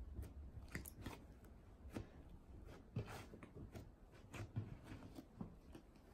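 Faint, irregular soft clicks and crackles of hands kneading and folding a lump of slime with dry snow powder worked into it.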